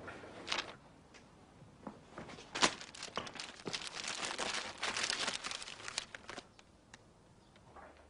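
Paper being handled: crinkling and rustling in a dense run of quick crackles through the middle, with a few sharp single crinkles before it.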